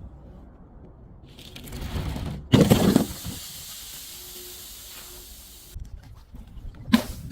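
An object under a crusher gives way with a loud sudden burst about two and a half seconds in. A steady hiss follows for about three seconds, then a few short sharp cracks near the end.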